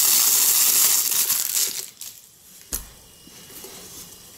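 Clear plastic packaging bag crinkling loudly as hands work it open and pull out a toy, stopping about two seconds in. A single sharp knock follows about a second later.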